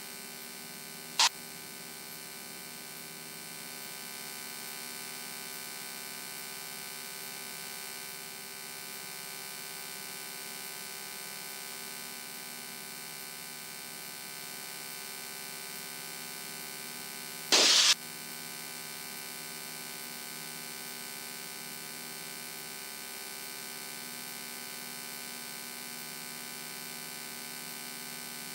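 Cessna 172N's engine droning steadily at climb power, heard as a flat hum through the aviation intercom and headset feed. Two short bursts of radio/intercom static break in, one about a second in and a longer one about two-thirds of the way through.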